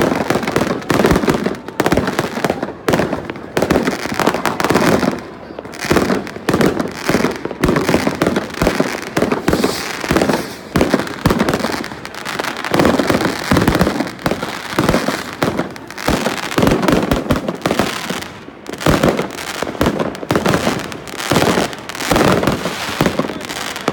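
Many aerial fireworks going off at once: a near-continuous barrage of overlapping bangs and crackles, with only brief lulls.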